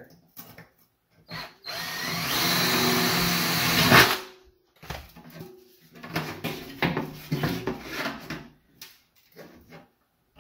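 Cordless drill boring a hole through the thin metal wall of a pot, running steadily for about two seconds and stopping with a sharp burst as the bit breaks through. A few seconds later come scattered clicks and knocks of a screw and a small thermostat being handled against the metal.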